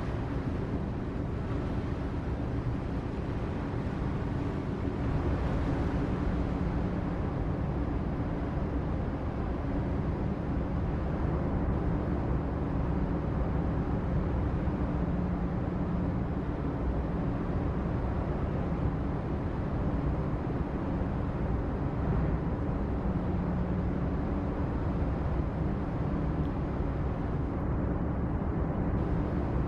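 Steady low engine rumble of ships in the harbour, with a constant low hum and no sudden sounds.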